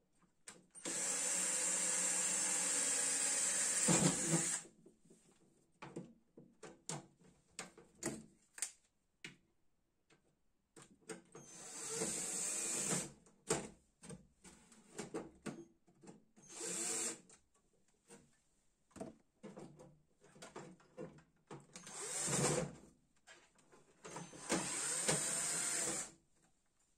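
Cordless drill running in several bursts, the first about four seconds long and the later ones shorter, with clicks and knocks of handling between them.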